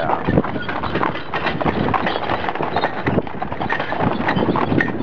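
Chuckwagon horses' hooves clip-clopping, a dense run of quick knocks.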